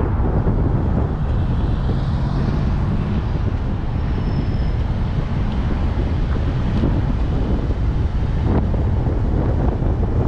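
A car driving, heard from inside the cabin: a steady rumble of engine and tyre noise on the road.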